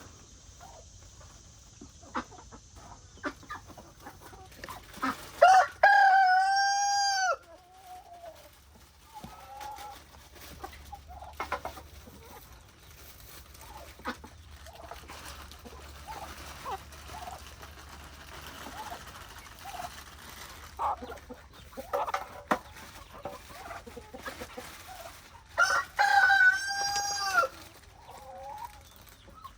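A rooster crows twice, about twenty seconds apart, each crow a loud call of nearly two seconds. Hens cluck softly in between.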